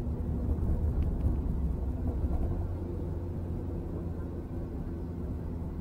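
Car driving along a narrow country lane, heard from inside the cabin: a steady low engine and road rumble.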